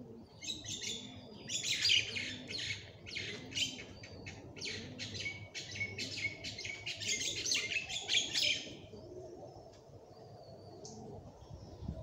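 Small birds chirping in a dense, rapid chatter that fades to a few scattered chirps about nine seconds in.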